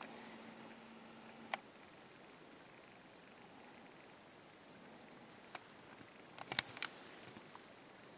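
Crickets chirring in a steady, high, fast-pulsed drone, with a few sharp clicks: one about a second and a half in and a quick cluster around six and a half seconds in.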